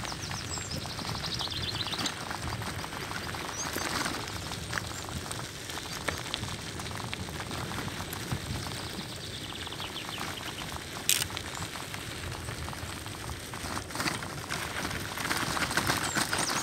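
Bicycle rolling downhill over a rough, patched asphalt lane: steady tyre and road noise with the bike rattling, and a sharp click about eleven seconds in.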